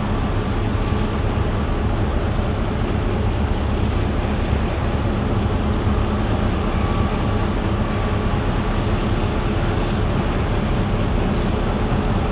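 Diesel locomotive engine running as the locomotive rolls slowly toward the listener over rough, poorly maintained track, with a steady low rumble and brief high squeaks every second or two.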